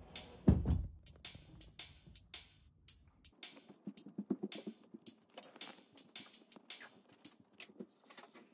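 Background music with a drum-machine beat of sharp hi-hat and cymbal hits. The bass drops out about three seconds in, leaving the lighter percussion.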